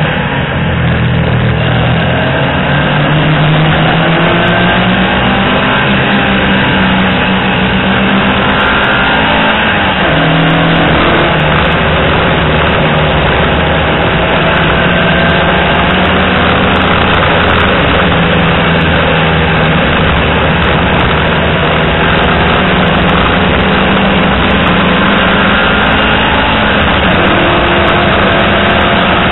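Peugeot 205 GTI's 1.6-litre four-cylinder engine pulling hard, heard from inside the car: the revs climb, fall sharply about ten seconds in, then climb again.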